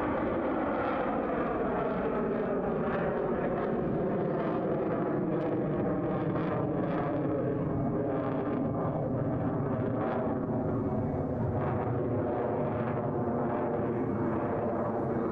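F/A-18 fighter jet's engines roaring as it flies overhead. The whine slides slowly down in pitch over the first half, then holds as a steady rumble.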